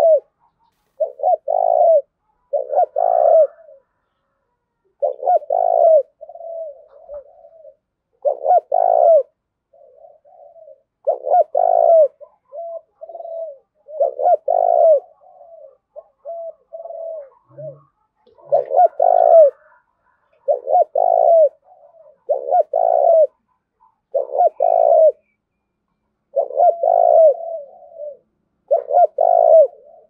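Spotted dove cooing over and over, loud low coo phrases coming about every one to two seconds with short pauses between them. This is the fast challenge cooing of a decoy male, the kind meant to goad rival males into fighting.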